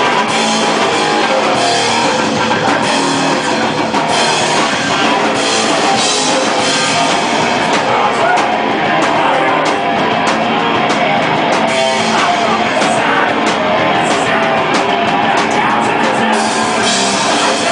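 Hardcore rock band playing live: distorted electric guitar over a drum kit, loud and unbroken.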